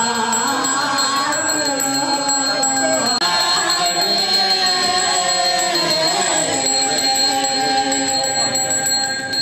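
A Balinese priest's hand bell (genta) rung without pause, its high ringing held steady, under a man's voice chanting a mantra in long held notes that slowly shift in pitch.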